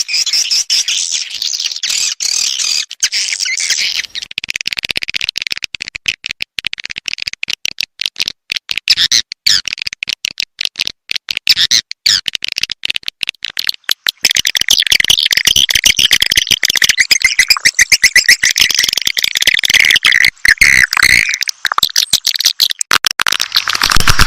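Swiftlet lure call: a dense, continuous twittering of rapid high chirps and clicks, growing louder and busier about halfway through. It is the kind of call track played at swiftlet nest houses to draw the birds in.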